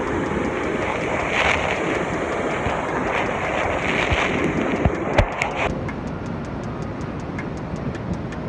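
Steady roar of a large waterfall with wind buffeting the microphone. About two-thirds of the way in, the roar drops back and a light ticking beat of about four a second comes in as background music starts.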